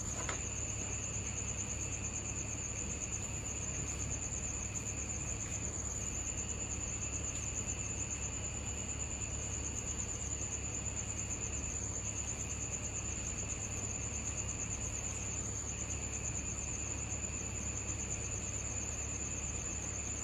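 Night insects trilling in a steady, high-pitched drone that does not let up, with a faint low hum underneath.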